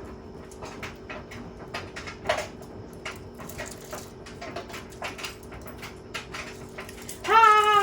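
JLA 8 kg washing machine running, with a steady motor hum under constant irregular knocks and rattles. Near the end a much louder wailing tone starts and slides slowly down in pitch.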